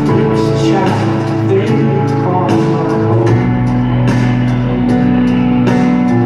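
A live rock band plays through an arena sound system, recorded from the stands, with long held chords over a slow, steady drum beat.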